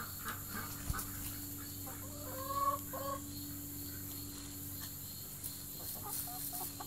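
Chickens clucking: two short calls a little over two seconds in, then fainter clucks near the end.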